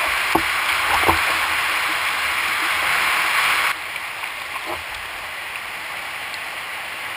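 Sea water lapping and sloshing around a kayak, with two short knocks in the first second and a half. A little under four seconds in the sound drops abruptly to quieter lapping with a few small ticks.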